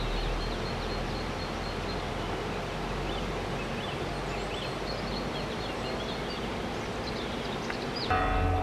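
Steady outdoor background rush with small birds chirping. About eight seconds in, a church bell begins to ring.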